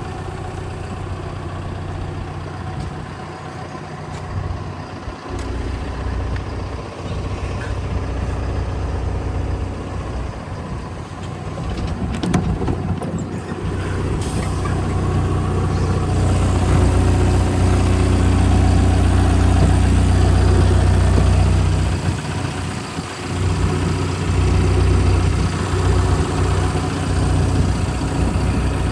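Liebherr R914 Compact excavator's diesel engine running, its note steady at first, then getting louder through the middle stretch, dipping briefly, and coming back up near the end.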